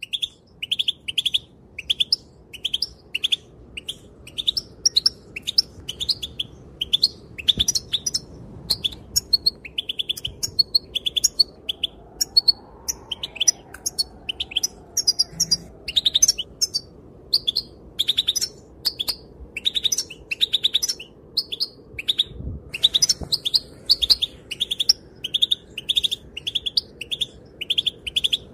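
Female European goldfinch calling: a steady run of short, high chirping notes, about two to three a second, breaking into quicker twittering song in the middle and again later.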